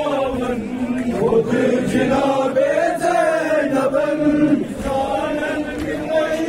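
Crowd of male Muharram mourners chanting together in unison, a continuous rising-and-falling melodic lament carried by many voices.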